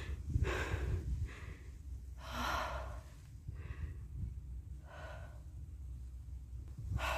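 A hiker breathing heavily, out of breath from the uphill climb: about six audible breaths, roughly one a second, over a low steady rumble.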